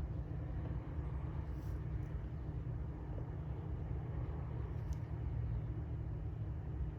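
Steady low outdoor rumble with a few faint ticks, without a clear source.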